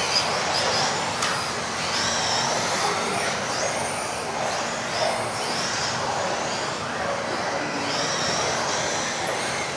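Several electric RC off-road buggies racing together on a carpet track in a sports hall: overlapping high-pitched motor whines that rise and fall every second or so as the cars accelerate and brake, over a steady rush of tyres on the carpet.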